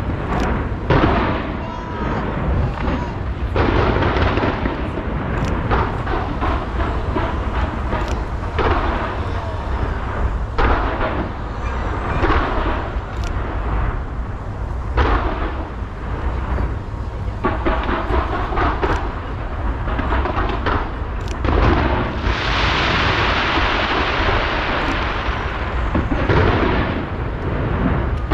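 Skyscraper-launched New Year's fireworks going off in a continuous barrage of booms and bangs over a steady low rumble. About two-thirds of the way through, a dense crackling hiss builds and holds for several seconds.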